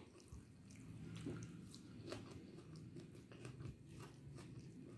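Quiet close-up chewing of a mouthful of rice and egg curry, with soft, scattered wet mouth clicks, along with fingers mixing rice on a plate.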